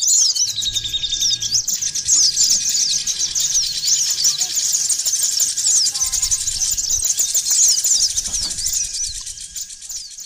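A dense chorus of small songbirds chirping: many quick, high, down-slurred chirps overlapping without pause, as played from a bird-lure recording. The chorus fades out over the last couple of seconds.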